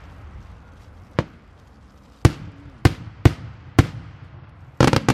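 Daytime fireworks: aerial shells bursting overhead as separate sharp bangs about a second apart, ending in a quick cluster of bangs.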